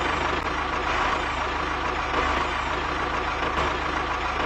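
Tractor diesel engine idling steadily with a low, even pulsing rumble.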